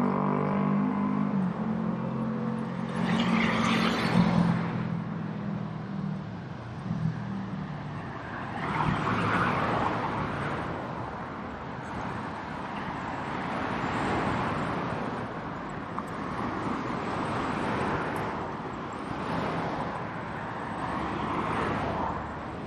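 Street traffic: cars passing one after another in swells every few seconds. A vehicle's low engine drone fades out over the first few seconds.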